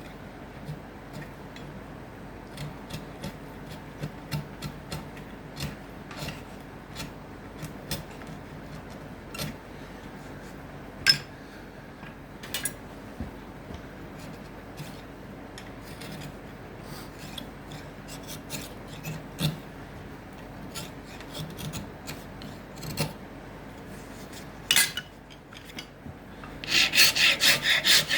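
Hand file working an acacia wood comb: light, scattered scrapes and ticks, then near the end a fast, steady run of back-and-forth filing strokes, about four a second.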